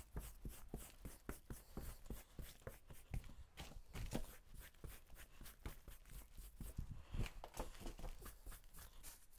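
Plastic brush stroking over a salt-cured Asian black bear hide, a quick run of short, scratchy strokes as the salt is brushed out of the fur.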